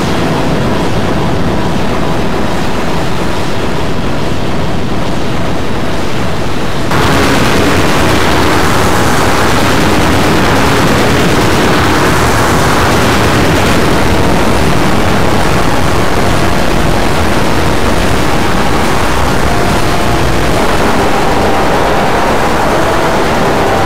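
Loud, heavily distorted electronic sound loops layered into a dense noisy wash, with a few faint steady tones under it. About seven seconds in another layer joins and the sound turns louder and brighter.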